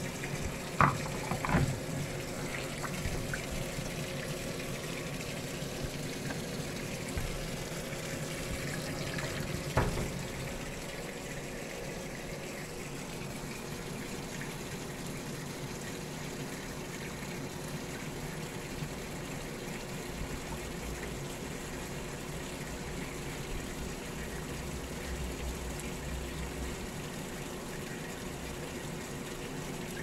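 Kenmore top-loading washing machine filling: water pouring steadily from the fill inlet into the tub of clothes. A few sharp clicks about a second in, and a single knock near ten seconds, stand out over the running water.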